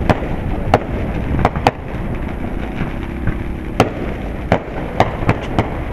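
Aerial fireworks shells bursting overhead: about nine sharp bangs at irregular intervals over a continuous low rumble.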